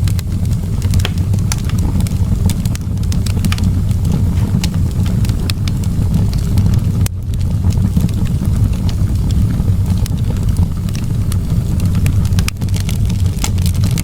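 Wood fire crackling in a fireplace: frequent sharp pops and snaps scattered irregularly over a steady low rumble.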